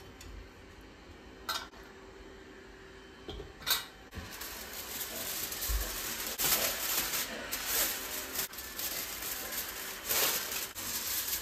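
Two sharp metal clinks as the parts of a cast-iron grill stand and pan are fitted together. Then, from about four seconds in, aluminium foil crinkling and rustling continuously as it is spread and pressed into the pan.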